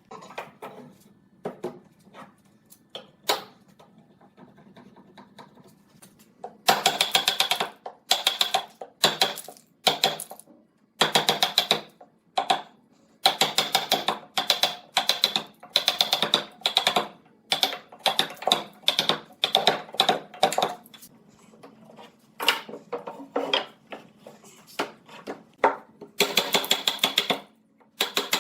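Repeated strokes of a hand tool working wood. Each stroke is a burst of rapid, fine clicking about a second long, with short pauses between, after a quieter start of scattered clicks.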